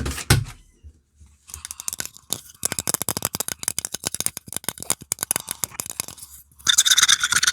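Rapid scratching and tapping on an object held close to the microphone: a couple of soft thumps, then a quick run of many small clicks, and near the end a louder rough rustling scrape.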